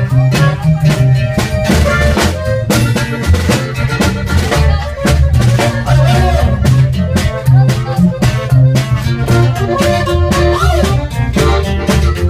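A band playing, with a drum kit keeping a steady beat over a stepping bass line and melody.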